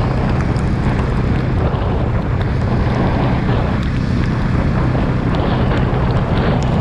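Wind rushing over the microphone of a Jawa motorcycle ridden through heavy rain, with the engine's steady low drone underneath.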